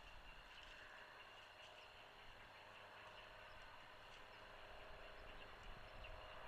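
Near silence: faint outdoor ambience with low hiss and hum, broken by a few faint, short high chirps.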